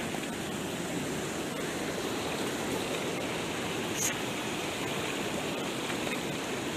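Fast-flowing floodwater rushing steadily as rubber wellington boots wade and slosh through it. A brief sharp tick about four seconds in.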